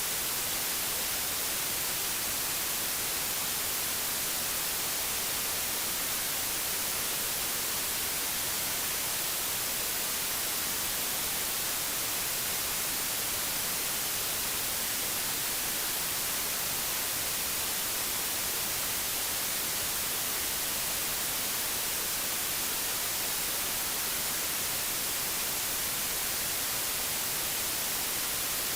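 Steady digital white noise with a flat spectrum: an even, unchanging hiss with no other sound in it.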